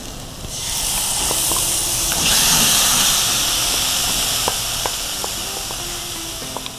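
Tomato puree sizzling as it goes into hot oil and fried spiced onions in a stainless saucepan: a steady hiss that starts about half a second in, gets louder about two seconds in and slowly dies down, with light clicks of a wooden spoon against the pan.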